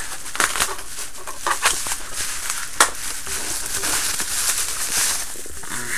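Handling of plastic reel-to-reel tape cases and their packaging: rustling with a series of sharp clicks and knocks, the loudest about three seconds in.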